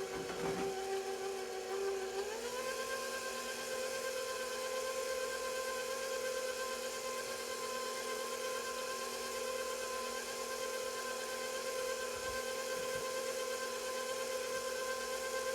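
KitchenAid stand mixer motor running steadily with a whine as it beats eggs into cake batter; about two seconds in it steps up to a higher speed and holds there.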